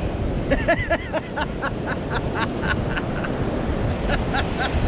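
Steady sound of surf breaking with wind on the microphone. Over it comes a rapid run of short high chirps, about four a second, lasting a few seconds, then a few more near the end.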